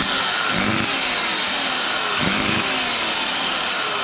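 Ryobi ECS-2040 2000-watt electric chainsaw motor switched on and running steadily at full speed, starting abruptly. Its brushes are arcing heavily, a fault that cuts its power and that the owner suspects comes from burnt-out windings.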